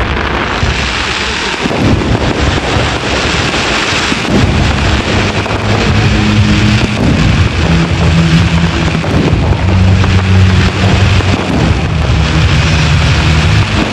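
Fireworks barrage: many shells bursting overhead in quick succession, their bangs and crackle running together into one continuous, loud, thunder-like din.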